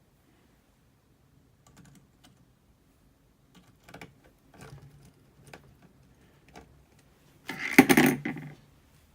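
Scattered light clicks and taps of plastic laptop screen parts being handled, then a louder scraping rustle lasting about a second near the end.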